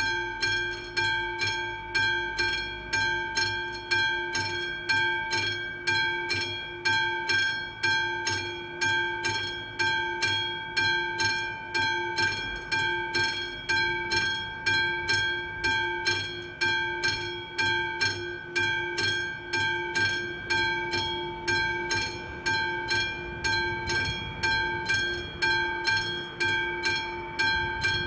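Classic mechanical bell of an AŽD 71 level-crossing warning signal ringing steadily, about two strikes a second, each strike ringing out in several clear tones: the crossing warning is active for an approaching train.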